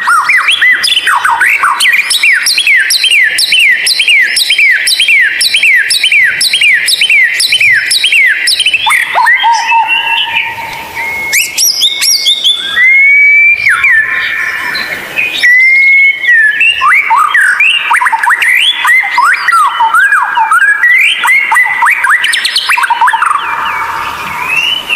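White-rumped shama singing loudly: a long run of repeated swooping notes, then a few long held whistles about halfway through, then fast, varied phrases.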